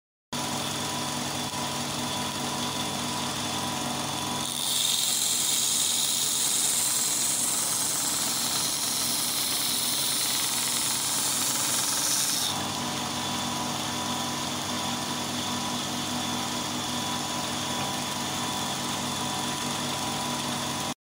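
Compact belt grinder's 370 W electric motor running steadily with its sanding belt. From about four seconds in to about twelve seconds in, a piece of 9 mm plywood is pressed against the belt and ground, adding a loud sanding hiss over the motor hum.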